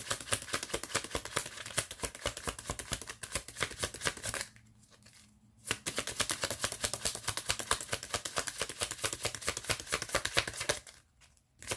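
A deck of tarot cards being shuffled by hand: a rapid run of card-on-card flicks and slaps. It breaks off for about a second around four and a half seconds in, then resumes and stops shortly before the end.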